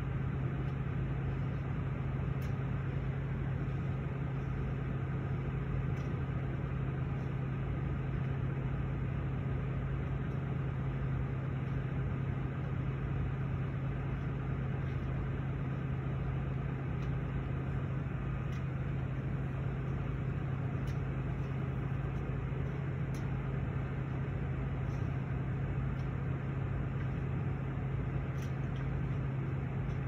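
Bucket truck's engine idling steadily, a constant low hum, with a few faint clicks scattered through it.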